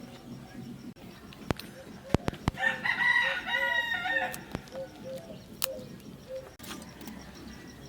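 A rooster crowing once, one call of about two seconds in the middle, with a few sharp clicks around it.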